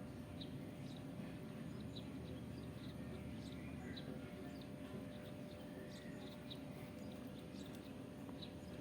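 Faint short, high chirps from a bird, repeated irregularly about twice a second, over a steady low hum.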